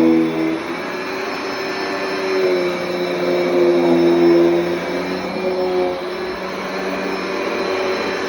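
Dyson vacuum cleaner running while vacuuming carpet, a steady rushing noise with a motor whine that shifts in pitch several times.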